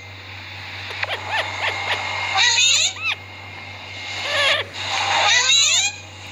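Green parakeet calling: a few short chirps, then two longer bursts of rapid warbling calls, about two and a half and five seconds in.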